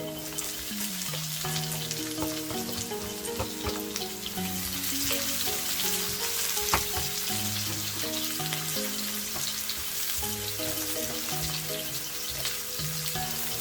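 Meat and garlic sizzling as they fry in a pan, with scattered clicks of a spoon stirring; the sizzle grows stronger about four seconds in. Soft background music plays underneath.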